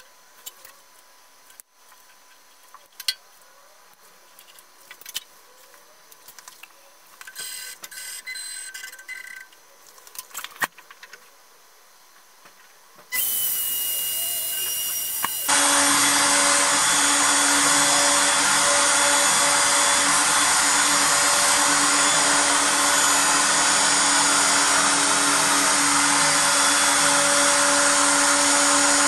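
Scattered light clicks and knocks. About thirteen seconds in, a power tool starts with a high whine, and a couple of seconds later a louder, steady machine noise with a low hum joins it and runs on.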